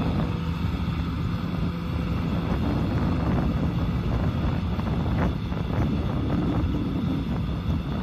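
Kubota M6040SU tractor's diesel engine running steadily while it pulls a rotary tiller through wet soil, with wind on the microphone.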